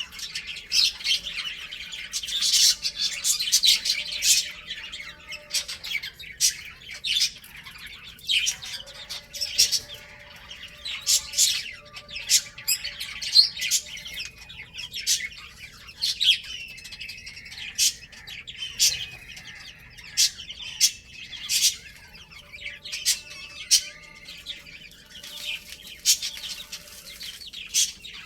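Baby chicks peeping, many short sharp chirps coming several a second and overlapping, without a pause.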